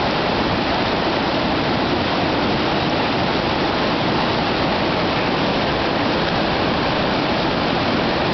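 River rapids rushing steadily: an even wash of whitewater noise with no breaks.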